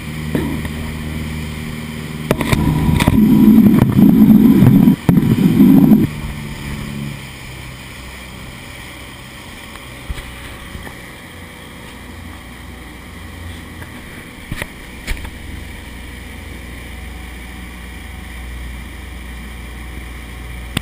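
Motorboat engine running steadily underway, a low drone with wind and water noise. A loud, rough rumbling burst lasts about four seconds near the start, then the drone settles, with a few faint knocks later on.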